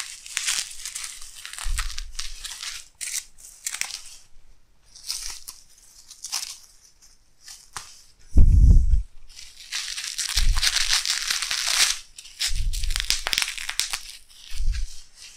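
Bubble-wrap packaging crinkling and rustling in bursts as it is pulled off a pair of fishing rods. Several dull low thumps come through as well, the loudest about eight seconds in.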